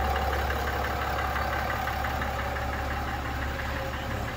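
The 3.0-litre Duramax inline-six turbodiesel of a 2021 GMC Sierra AT4 idling steadily: a low hum with a fast, even ticking over it. It grows a little fainter near the end.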